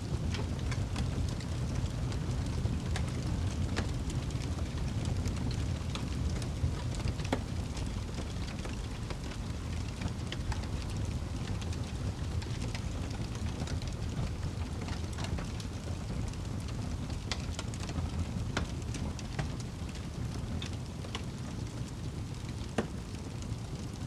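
Fireplace fire crackling: irregular sharp pops and snaps scattered over a steady low rumble.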